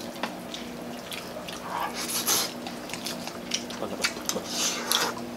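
Close mouth sounds of people eating fried chicken and rice with their hands: wet chewing and smacking in short bursts, with light clicks, over a faint steady hum.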